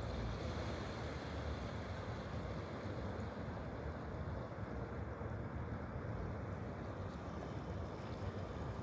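Steady rushing of flowing water, an even noise with no distinct calls or strikes.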